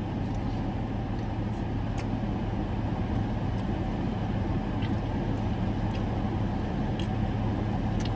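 Steady low hum of a car idling, heard from inside the cabin, with a few faint clicks now and then.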